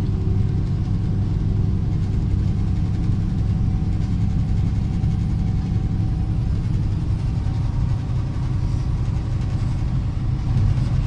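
Steady low rumble of engine and road noise inside the cab of a truck driving along the highway.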